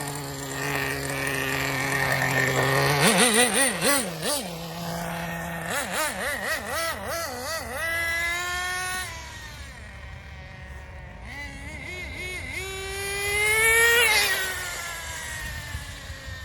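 Small .15 nitro engine of a Team Associated NTC3 1/10 RC car, idling steadily, then blipped up and down in quick revs. Near the end it revs up to one longer, louder peak and falls back.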